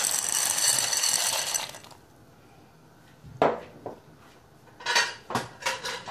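Dry fusilli pasta poured into a pot of boiling water: a loud rushing rattle and hiss for about two seconds. From about halfway in, a few sharp metallic clinks of kitchenware.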